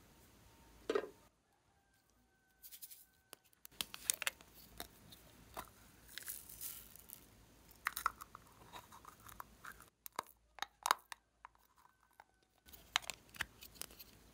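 Small plastic pineapple-shaped container being handled and its lid twisted open: scattered sharp plastic clicks and crackles, with a louder knock about a second in.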